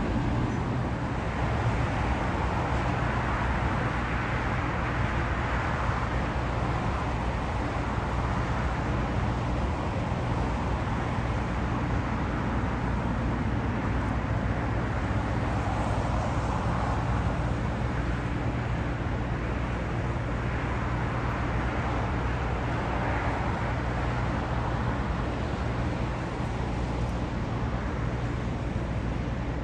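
Steady engine and traffic rumble with a low constant hum underneath, swelling gently now and then, with no sudden sounds.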